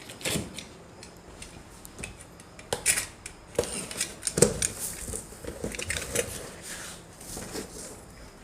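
Cardboard box and packaging of a PC case being opened by hand: irregular rustles, scrapes and knocks, a little louder about three and four and a half seconds in.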